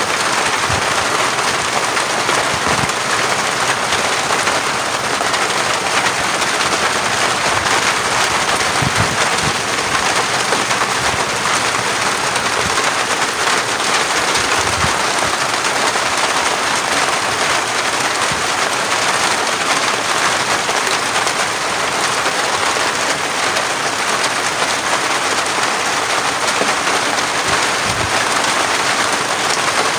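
Steady rain falling, a dense even hiss throughout, with a few dull low thumps here and there.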